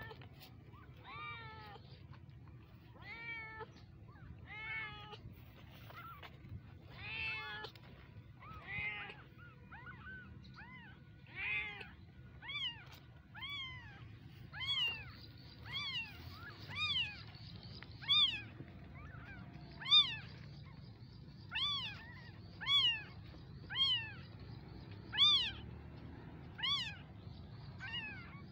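Newborn kittens mewing over and over in short, high, rising-then-falling cries, about one a second, getting louder in the second half.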